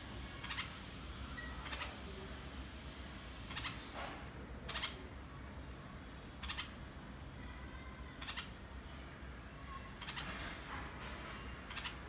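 Birds giving short, harsh calls every second or two, coming closer together near the end, over a faint hiss that drops away about four seconds in.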